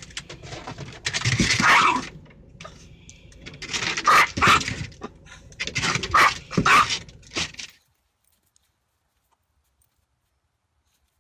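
Small chihuahua barking in several bouts of short, sharp, high yaps inside a car, stopping suddenly about eight seconds in.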